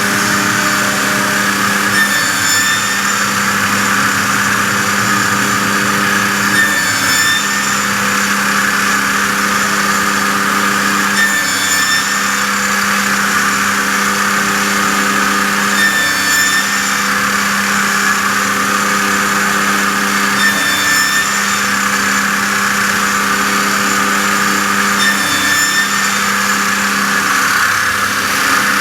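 CNC router running a Benz saw blade aggregate, the spinning blade and spindle giving a loud, steady hiss. Under it the machine's hum steps to a new pitch about every four to five seconds, with a brief high chirp at each change, as the head moves from one cut to the next.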